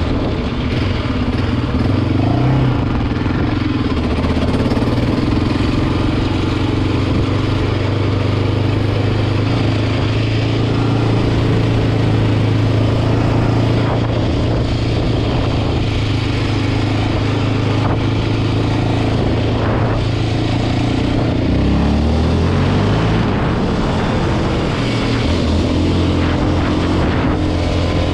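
2008 Yamaha Raptor 700 ATV's single-cylinder four-stroke engine running steadily on the move. About 22 seconds in, the engine note drops and then climbs back up.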